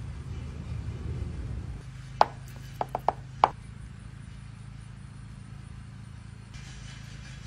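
Food-prep handling on a cutting board: five short, sharp clicks or taps in quick succession, over a low hum that eases off just before them.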